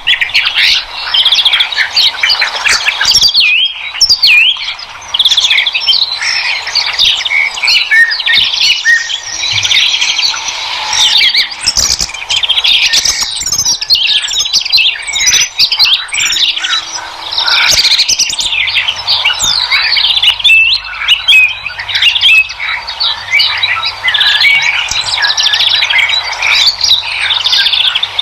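A chorus of many birds chirping and singing at once, with quick overlapping calls throughout.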